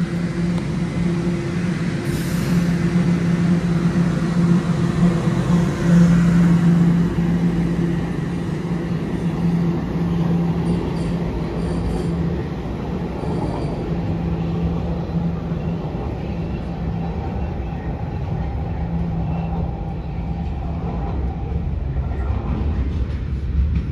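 TTC Toronto Rocket subway train pulling out of the station: its traction motors give a steady hum over the rumble of steel wheels on the rails, the hum weakening after about a dozen seconds. Low rail rumble grows again near the end.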